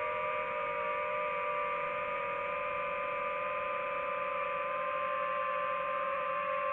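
DJI FPV drone's motors and propellers whining steadily in flight, their pitch drifting slightly as the drone holds a low, even pass.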